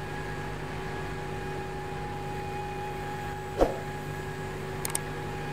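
Steady machinery hum with a few held tones: the engine-room background sound of a marine boiler simulator. About three and a half seconds in, a single sharp thump comes as a subscribe-button animation pops up, and a couple of faint clicks follow near the end.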